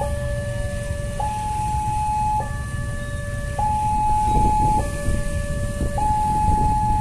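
Railway level-crossing warning alarm sounding a hi-lo two-tone signal, switching between a lower and a higher tone about every 1.2 seconds, warning that a train is approaching. A steady low rumble runs underneath.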